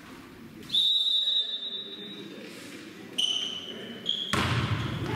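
A volleyball referee's whistle gives one long steady blast, about a second and a half, starting about a second in: the signal to serve. Two short high calls follow, then a sudden loud burst of noise fills the gym near the end.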